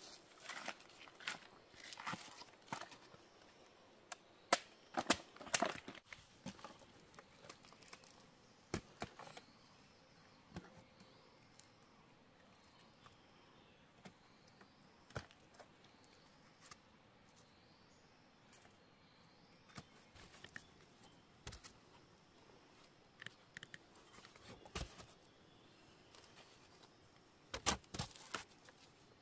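Freshly cut bamboo shoots being handled and packed into a woven basket: scattered sharp wooden knocks and thuds, with clusters of them about five seconds in and again near the end.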